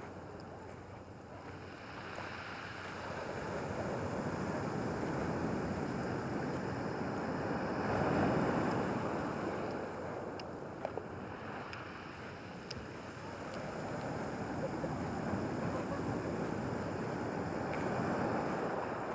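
Sea waves breaking and washing back on a pebble beach, a steady surf noise that swells loudest about eight seconds in and again near the end.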